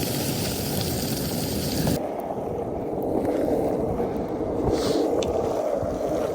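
Skateboard wheels rolling over a wet, snowy road, a steady gritty rush. The sound changes abruptly about two seconds in, losing its hiss and leaving a duller rumble.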